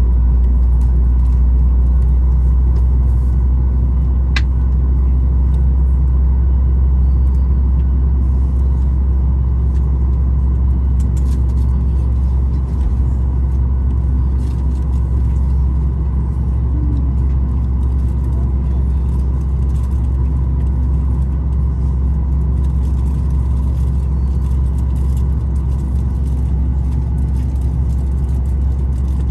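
Steady low rumble of an airliner cabin, with faint steady whine tones over it and a single light tick about four seconds in.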